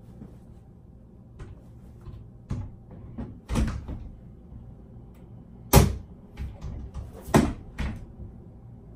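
A sliding closet door being lifted and worked back onto its overhead track, its wheels riding in the head rail: a run of irregular knocks, clunks and short scrapes as the door and its hardware bump against the rail. The sharpest knock comes about six seconds in, with another strong one a moment later.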